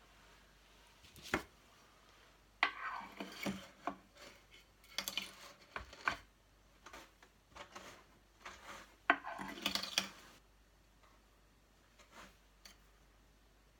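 Carded wool being pulled and torn off the large drum of a hand-cranked drum carder, in several short scratchy bursts with a few knocks, the sharpest just over a second in.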